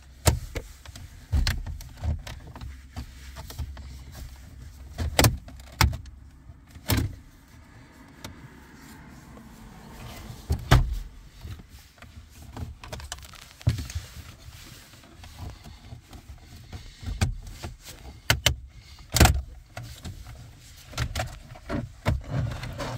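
Plastic dashboard trim panel of a 2015 Hyundai Sonata being worked loose by hand, giving irregular sharp clicks and knocks spread over several seconds.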